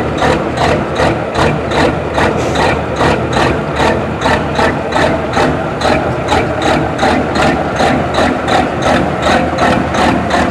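Pulling semi truck's diesel engine idling loudly with an even, loping pulse of about three beats a second.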